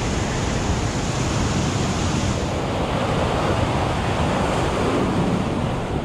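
Heavy surf breaking and churning over a rocky shore, a steady rushing wash of waves.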